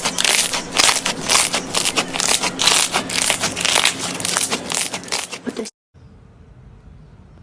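Slime being squished, a dense run of crackling, popping clicks that cuts off abruptly a little over five seconds in.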